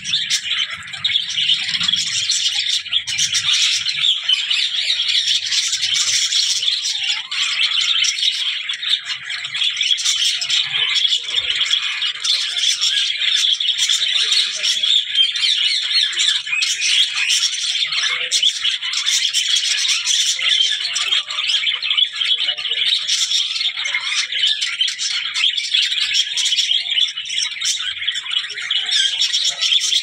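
Budgerigars chattering continuously, a dense stream of rapid high-pitched chirps and warbles.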